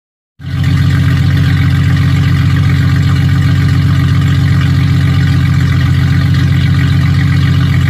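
Engine running loudly and steadily at an unchanging speed, starting abruptly about half a second in.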